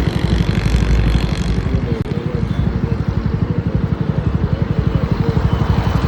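Jawa 42 Bobber motorcycle's single-cylinder engine running as the bike is ridden, with a steady, rapid exhaust beat and wind rush on the microphone, strongest in the first second or so.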